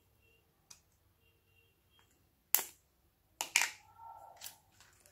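Snap-on plastic lid of a small paint pot popping off with a sharp pop about two and a half seconds in, followed by a few lighter plastic clicks and rustling as the pot is handled.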